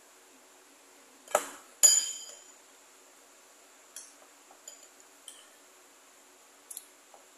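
Metal spoon clinking against a white ceramic bowl while eating the last of the gulaman with milk: two sharp clinks about a second and a half in, the second ringing briefly, then a few lighter taps.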